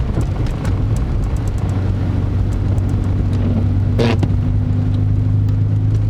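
Car interior road noise while driving: a steady low drone of engine and tyres. A faint second steady tone comes in about three and a half seconds in, and a brief sharper sound stands out about four seconds in.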